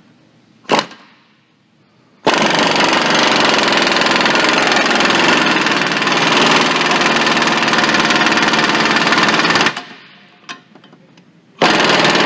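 Impact wrench hammering on the forcing screw of a C-frame ball joint press, driving out a seized, stubborn ball joint. One sharp knock about a second in, then a long burst of rapid hammering of about seven seconds, and a second burst starting near the end.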